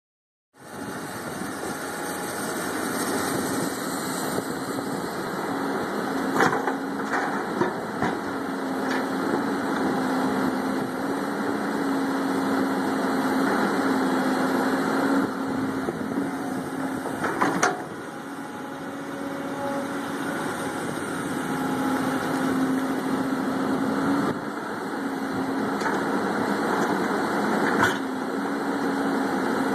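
Hyundai 210 excavator's diesel engine running steadily as the machine digs and swings, its level rising and dipping a little with the hydraulic work. A few sharp knocks from the working bucket are heard, the loudest about 17 seconds in.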